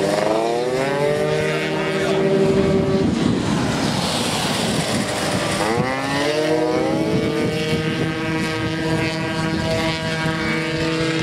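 50cc racing motorcycle engines at high revs as the bikes accelerate out of a corner and pass; the engine note climbs steeply twice, near the start and about halfway through, then holds a high, steady pitch.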